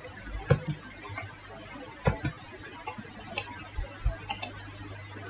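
Sharp clicks of a computer mouse, about six in all, including two quick double clicks, over a steady low hum.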